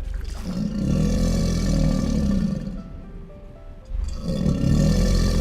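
Two long, deep animal roars, each lasting about two and a half seconds, with background music underneath.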